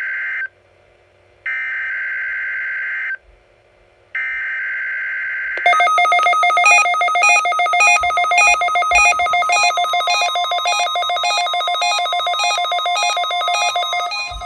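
Three EAS SAME header data bursts, each about a second to a second and a half long with roughly a second of silence between, as a Required Weekly Test begins. About five and a half seconds in, a louder electronic alert tone takes over, several pitches at once pulsing in an even repeating pattern.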